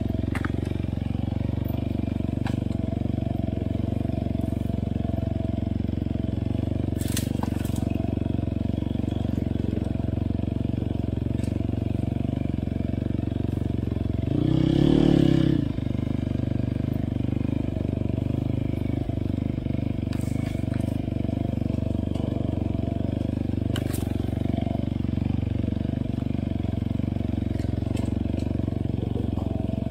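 Enduro dirt bike engine running at steady, fairly low revs while riding a trail. There is a brief louder swell about halfway through and a few sharp clicks along the way.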